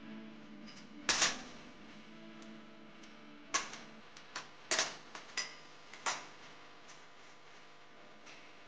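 Whole spices (star anise, dried red chilli, mace) dropped by hand onto a stainless steel pan, giving scattered sharp clicks and clatters. The loudest comes about a second in, with a cluster between about four and a half and six seconds.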